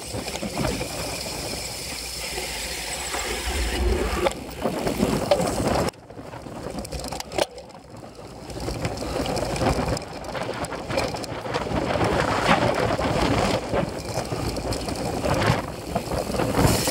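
Ride noise from a cyclocross bike on a rough dry grass course: wind on the microphone, tyres rolling over the ground and the bike rattling over bumps. It goes quieter for a few seconds about six seconds in, then builds again.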